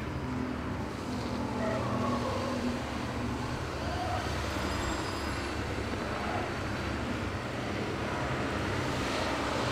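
Steady low rumble of road traffic, with no distinct knocks or rattles standing out.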